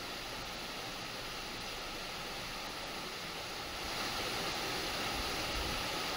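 Floodwater rushing through a street: a steady, even noise of fast-moving water that gets a little louder about four seconds in.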